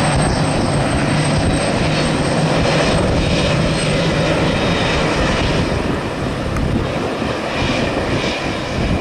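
Boeing 767-300 freighter's two GE CF6-80C2 turbofan engines at taxi power: a steady jet engine rumble with a thin high whine, easing a little after about six seconds.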